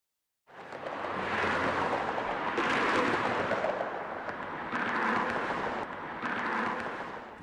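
Freeway traffic: a steady rush of tyre and engine noise that fades in about half a second in and swells and eases about four times as vehicles pass.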